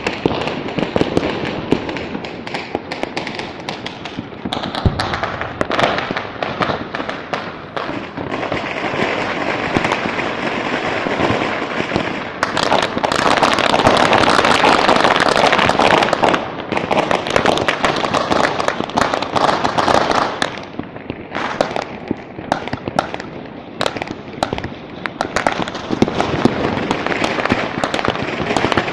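Many fireworks and firecrackers going off at once: a dense, unbroken crackle of bangs and pops, heaviest and loudest about halfway through.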